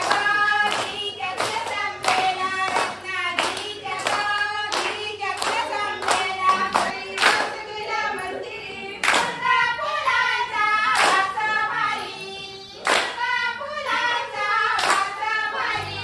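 Maharashtrian folk song accompanying a folk dance: a high voice singing over an even, sharp beat of about two strokes a second.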